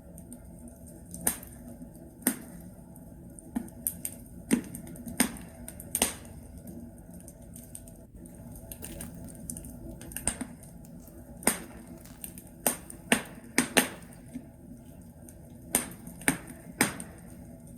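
Log fire in a fireplace crackling: irregular sharp pops and snaps from the burning wood, some in quick clusters, over a steady low hiss.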